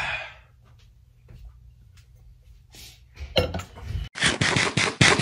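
Plastic cutlery clicking and scraping against a styrofoam take-out container. A few faint knocks come first, then a dense, loud run of clicks and scrapes from about four seconds in.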